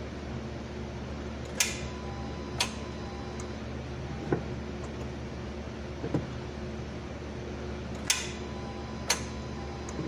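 2014 Honda Accord starter clicking without cranking: two pairs of sharp clicks about a second apart, near the start and again near the end, with a couple of duller knocks between, over a steady background hum. The starter is trying to engage but does not turn the engine, which the mechanic takes for the starter solenoid hanging up.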